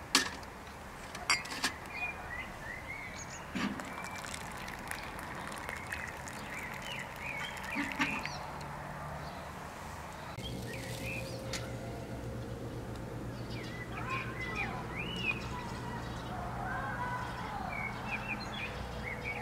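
Small birds chirping and calling all through, with two sharp clinks in the first second and a half as a tea glass is set on a metal tray.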